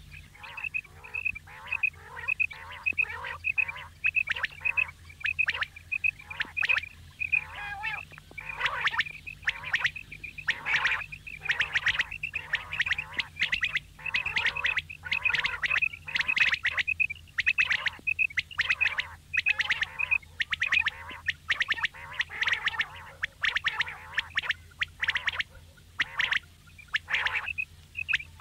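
Female common quail calling over and over: a fast run of short high notes, several a second, mixed with raspier calls that overlap them. A steady low hum lies underneath.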